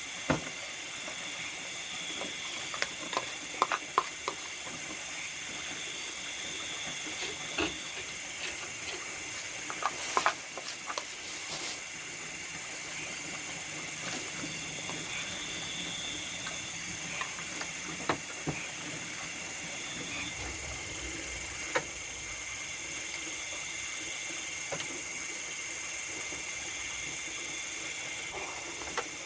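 Steady chorus of nocturnal rice-field insects, several high ringing tones holding level throughout. Scattered light clicks and knocks sound over it, with a brief cluster of louder ones about ten seconds in.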